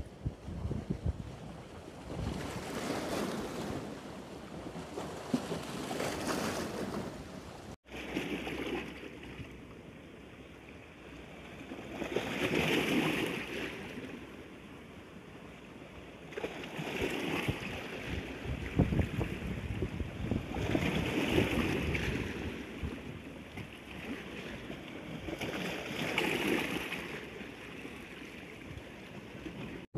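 Small waves of estuary water washing and splashing against the rocks of a stone breakwater, swelling and fading every four to five seconds, with wind buffeting the microphone.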